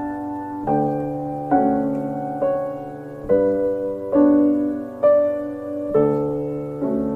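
Slow, gentle piano music: a note or chord struck about once a second and left to ring and fade.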